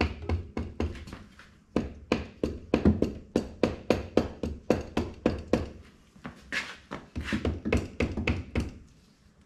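Hammer tapping repeatedly on vice grips clamped to a TH350 transmission's front pump, about three to four blows a second in short runs, to work the pump loose from the case without a puller.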